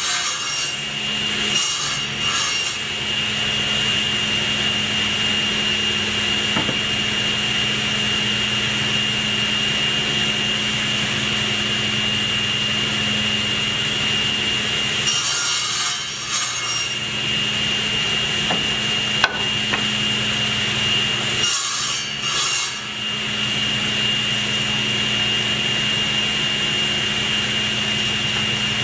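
Table saw running steadily with a constant hum and high whine, the blade cutting into a hardwood leg blank on several passes to cut tenon cheeks. Each pass adds a hissing rasp: twice near the start, once about 15 seconds in and once about 22 seconds in. There is a single sharp click about 19 seconds in.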